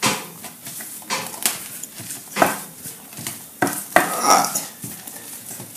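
Soft boiled food being mashed in an earthenware bowl: irregular knocks and scrapes of the masher against the bowl, with no steady rhythm.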